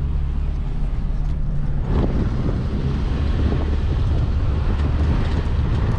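Toyota Tacoma pickup driving on a dirt trail: a steady low engine and road hum, with tires crackling over gravel and loose dirt.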